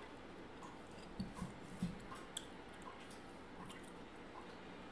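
Faint wet squishing and small clicks of sauce-covered shrimp being peeled by hand close to the microphone, with soft chewing.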